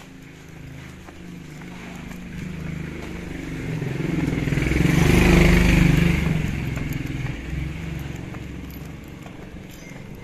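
Motorcycle engine passing close by, growing louder to a peak about halfway through and then fading away.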